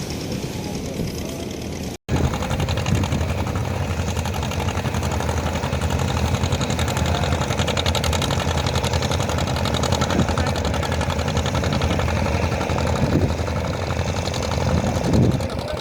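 A boat engine running steadily with a fast, even beat. The sound drops out for an instant about two seconds in, then comes back a little louder.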